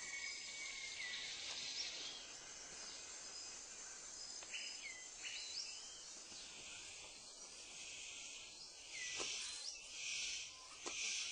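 Rainforest ambience: a steady high hum of insects with short, hooked whistled bird calls, and three louder hissing bursts near the end.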